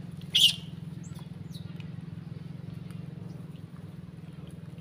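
A long-tailed macaque gives one short, high-pitched squeal about half a second in, followed by a few faint chirps, over a steady low hum.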